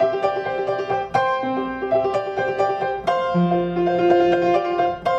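Yamaha grand piano playing a slow song introduction: a full chord struck about every two seconds, with notes moving between the strikes.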